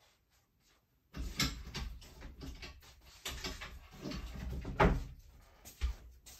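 Rummaging through craft supplies: objects being shifted and knocked together, with irregular rustles and clatter and one louder knock about five seconds in.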